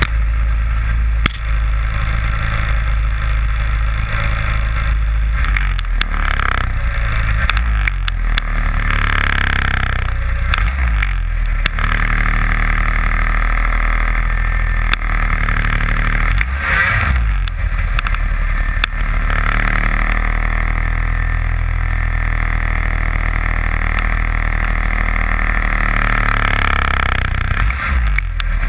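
Snowmobile engine running under way as the sled travels over snow, its pitch rising and falling a few times with the throttle, over a steady low rush of wind on the camera microphone.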